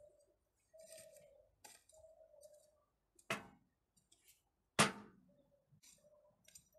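Hand hoe chopping and scraping into dry garden soil, with two sharp strikes of the blade about halfway through, a second and a half apart.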